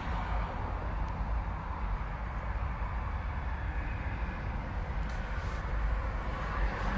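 Steady outdoor background noise: a constant low rumble with a broad hiss, and a few faint ticks.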